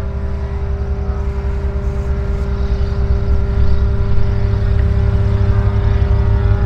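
An engine running steadily: a constant drone with a strong low rumble, growing somewhat louder from about halfway through.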